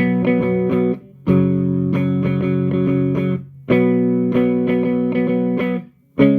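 Electric guitar played through a Hughes & Kettner Attax Metroverb 50-watt transistor combo amp: chords struck and left to ring in phrases of about two and a half seconds, with short breaks about a second in, midway, and near the end.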